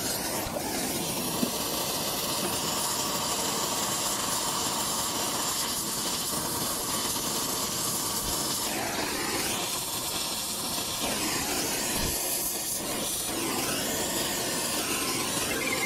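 Oxy-fuel brazing torch flame hissing steadily while it heats a leaking copper joint on a heat pump's refrigerant manifold for brazing with filler rod; the tone shifts a little partway through as the flame is moved on the joint.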